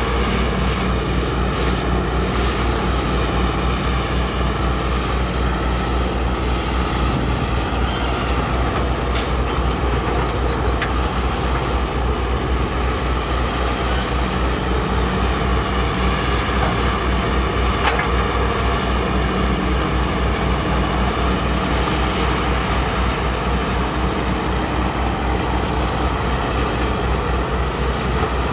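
Heavy diesel engine of construction machinery running steadily: a deep, even drone that does not let up.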